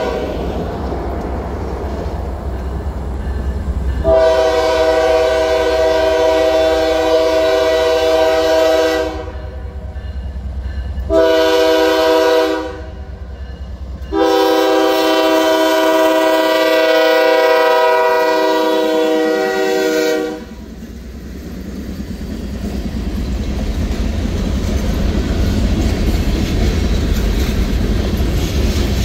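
Norfolk Southern diesel freight locomotive's horn sounding three loud blasts, long, short and long, after a fainter opening tone. As the locomotive passes, its engine and the freight cars' wheels rumble and click along the rails, growing louder.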